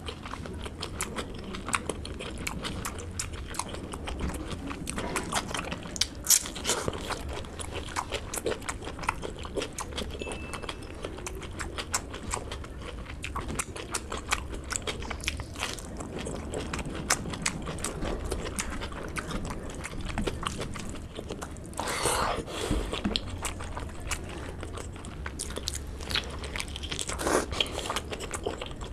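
Close-miked eating sounds of a person eating pork curry and rice by hand: wet chewing, lip smacks and bites, with a few louder bites along the way.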